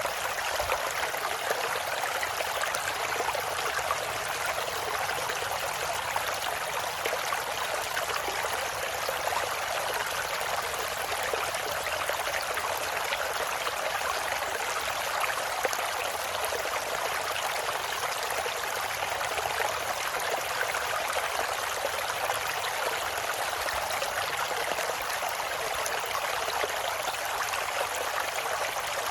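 Mountain valley stream flowing steadily over rocks, an even rush of water without breaks.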